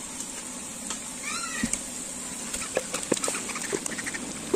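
A large pot of chicken in masala gravy sizzling and steaming over the fire, with a run of knocks and scrapes against the pot in the second half as it is stirred. One short animal cry about a second in.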